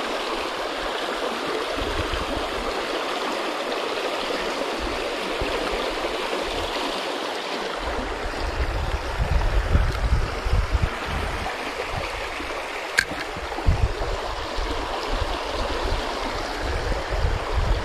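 River current rushing steadily around a snag of driftwood. From about eight seconds in, low uneven thumps hit the microphone, and a single sharp click comes near the end.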